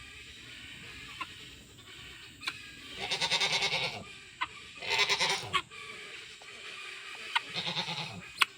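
Guinea fowl calling in three rapid, rattling bursts of about a second each, with a few sharp clicks in between.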